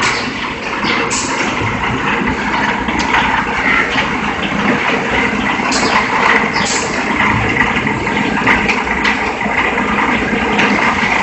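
Machinery of a PS foam sheet and food-container production line running with a steady mechanical din, with brief sharp noises several times.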